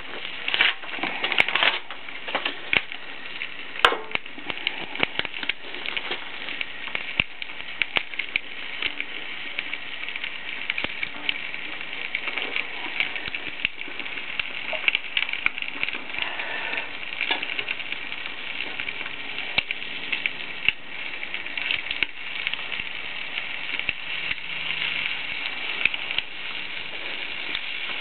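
Small stick fire crackling steadily in a folding sheet-metal box stove, with a few louder pops in the first four seconds.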